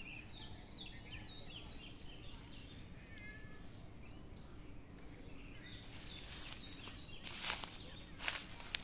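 A run of quick, high chirping calls over the first few seconds, with one more a little later, over a steady low background hum. Then a rustle with two sharp clicks near the end.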